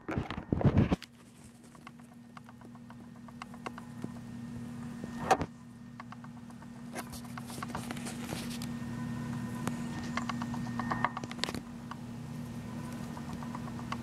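Dwarf hamster moving in paper bedding and nibbling food: small crackles and clicks, loudest in the first second, with one sharp knock about five seconds in. A low steady hum runs underneath and grows louder.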